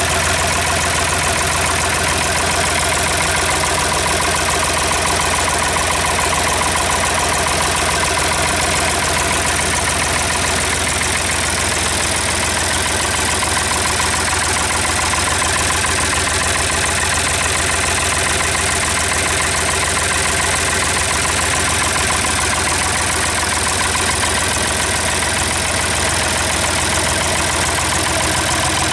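Ford 4000 tractor's three-cylinder diesel engine, run stand-alone out of the tractor, running steadily at a constant speed.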